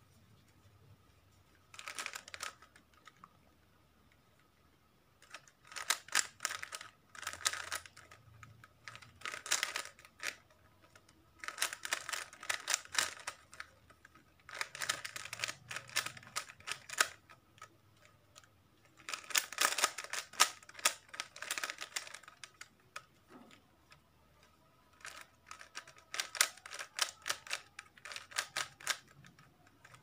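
A plastic 3x3 Rubik's cube being turned by hand during a solve: quick runs of clicking and clacking as the layers snap round, in bursts of one to three seconds with short pauses between.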